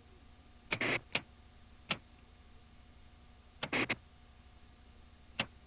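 Clicks of a rotary channel-selector knob on an old television set being turned through its detents. They come in small groups spread over several seconds.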